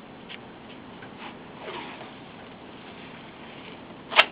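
Faint rustles of hands working white athletic tape on an ankle, over quiet room noise, with one short sharp rasp near the end.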